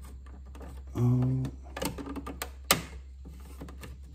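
Small plastic clicks and ticks as a plastic window frame is pried out of a 1/6-scale model car door by hand, with one sharp click about two and a half seconds in. A short hummed grunt from the man doing it, about a second in, is the loudest sound.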